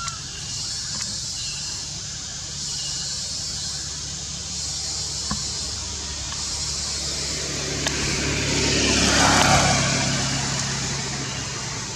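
A motor vehicle passing on the road, building up from about eight seconds in to its loudest near nine and a half seconds, then fading. Under it runs a steady low hum and a steady high hiss.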